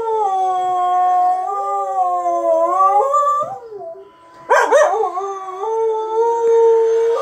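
Canine howling, several voices overlapping: two long, wavering howls with a short break about halfway through.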